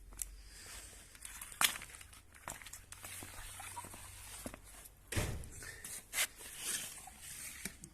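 Handling noises: scattered clicks and knocks with brief rustling, over a faint low hum that stops about halfway through.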